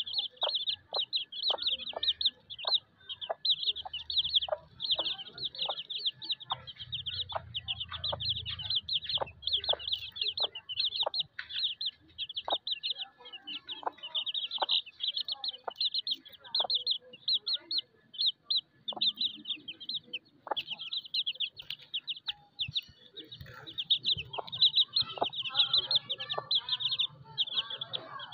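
A brood of chicks peeping without pause in rapid high cheeps, with a mother hen clucking in short, evenly spaced clucks, about two a second, that thin out about halfway through.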